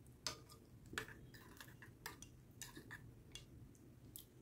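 A metal spoon stirring spicy fuchka (pani puri) water in a glass bowl: faint, irregular clicks of the spoon against the glass.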